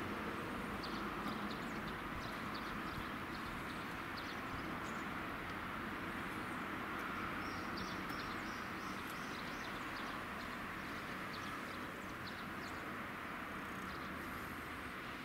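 Birds chirping in short, scattered high calls, thickest in the first few seconds and around the middle, over a steady outdoor hiss and low rumble.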